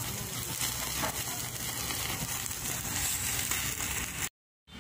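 Chicken sizzling on a wire grill over glowing wood embers, a steady hiss with fine crackling. It drops out to silence for a split second near the end.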